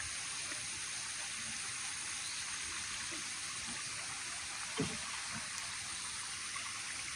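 Steady, even outdoor background hiss, with one faint short sound about five seconds in.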